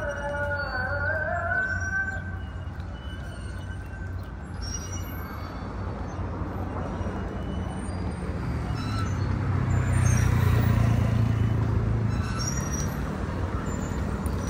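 Road traffic noise, with a motor vehicle passing that grows loudest about ten seconds in and then fades. A few short bird chirps are heard faintly over it.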